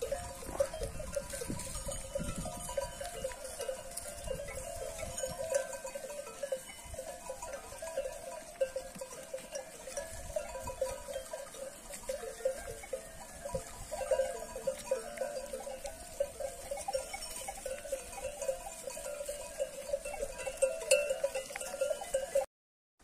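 Bells on a grazing flock of sheep clanking irregularly and without pause, many bells overlapping.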